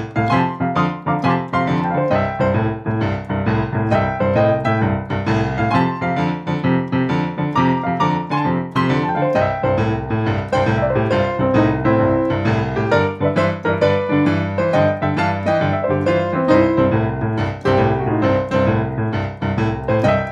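Boogie-woogie piano played on a digital piano. A steady, rolling left-hand bass pattern that moves to a new chord every few seconds runs under quick right-hand runs and chords.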